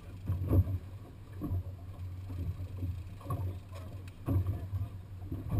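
Waves slapping against the hull of a small fishing boat in irregular thumps about once a second, over a steady low rumble.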